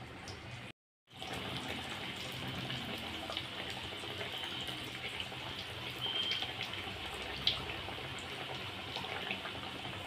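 A ball of jaggery, semolina and flour batter deep-frying in hot oil in a metal kadai: a steady sizzle with scattered small crackles and pops. The sound drops out briefly about a second in.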